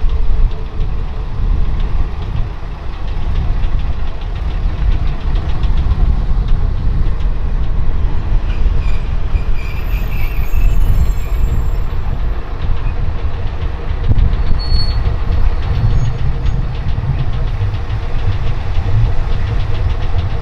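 A two-car diesel railcar rumbles as it moves slowly over hand-set points into a siding. In the second half, its wheels click in a steady rhythm over the rail joints.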